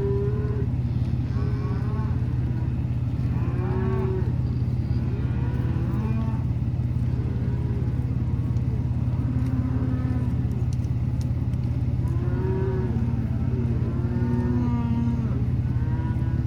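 A herd of cattle mooing, many calls overlapping one after another, over a steady low hum.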